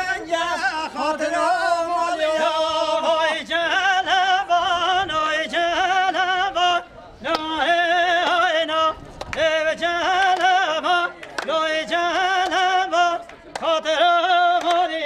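A man singing unaccompanied in a heavily ornamented, wavering style, with long phrases broken by short pauses for breath.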